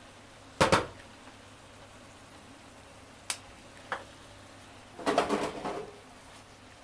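Pork and onions simmering in sauce in a frying pan, with sharp knocks against the pan: two close together about half a second in, two lighter clicks in the middle, and a short burst of clatter about five seconds in.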